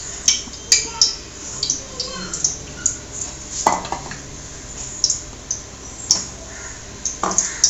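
Stainless-steel plate and kitchen vessels clinking and tapping as they are handled, with two louder metallic clanks, one about halfway through and one near the end.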